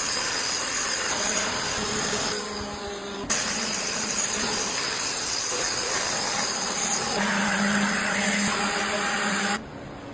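A motorised power tool running steadily on wood with a loud hissing noise, cut off abruptly about three seconds in and again near the end.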